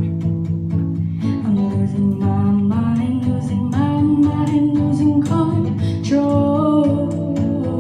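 A girl singing with strummed guitar accompaniment, holding long notes that slide from one pitch to the next.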